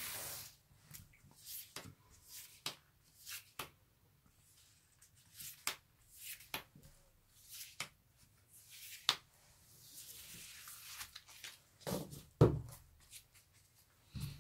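A deck of tarot cards being handled on a table: a brief slide as the fanned deck settles, then light scattered taps and flicks as single cards are picked out. Near the end comes a soft sliding hiss and two louder knocks as the rest of the deck is swept up.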